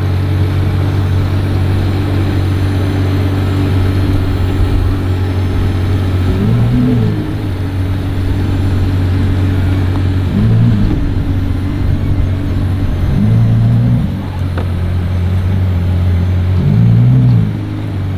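Ferrari Daytona SP3's 6.5-litre naturally aspirated V12 idling steadily and loud, then revved four times in short blips from about a third of the way in, each rising and falling back to idle.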